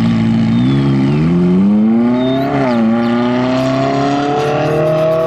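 Ferrari 458 Italia's V8 engine accelerating hard, its pitch climbing, then dropping briefly about two and a half seconds in at a gear change before it climbs again.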